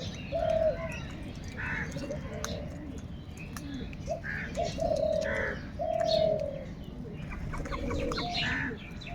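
Crows calling: a string of short caws, one after another, over a steady low background rumble.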